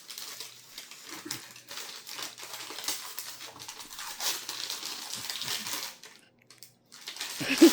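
A small cardboard gift box and its packing paper being handled and opened: rustling and crinkling with many small clicks and taps, which stops briefly about six seconds in.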